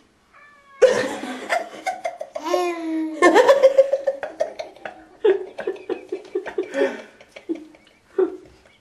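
People laughing hard, starting suddenly about a second in, with rapid rhythmic bursts of laughter through the middle that trail off near the end.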